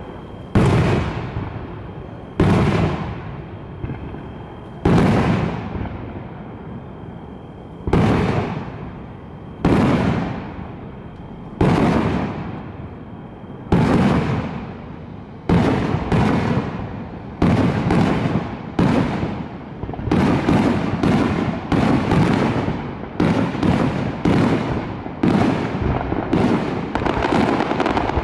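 Aerial fireworks shells bursting, each sharp boom trailing off slowly. They come about two seconds apart at first, then faster from about halfway, and overlap in a rapid run through the last third.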